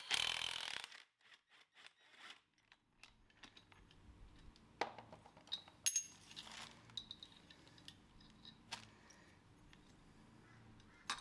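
A cordless impact driver runs briefly on the alternator's 19 mm pulley nut at the start, then faint metal clinks and taps at scattered moments as the nut, washer and pulley are lifted off the alternator shaft by hand.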